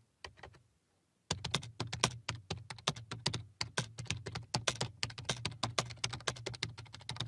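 Typing on a computer keyboard: a few scattered keystrokes, a brief pause about a second in, then quick, continuous typing of a sentence.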